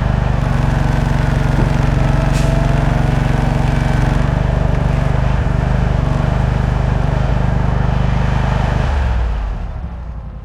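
Delivery truck engine running steadily. It changes about nine seconds in and then fades out.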